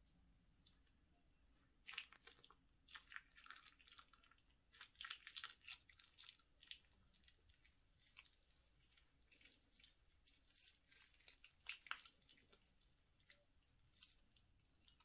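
Faint wet squishing and crackling of clear slime packed with small beads and glitter as a hand presses and kneads it, in irregular bursts of little pops and clicks.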